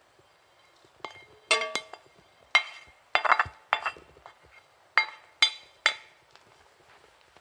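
A white plate and a spatula clinking against the rim and side of a metal pan as leftover rice is scraped off the plate into it: a series of about nine sharp clinks, several ringing briefly.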